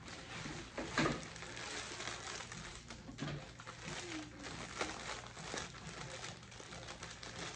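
White plastic poly mailer bag crinkling and rustling as it is handled and pulled open, with a few sharper crackles along the way.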